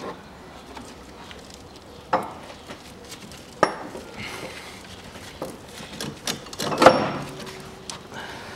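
Scattered metal and plastic knocks and clinks in an engine bay as an unbolted air-conditioning compressor and its hoses are worked loose by hand: a handful of separate knocks, the loudest about seven seconds in with a brief ring.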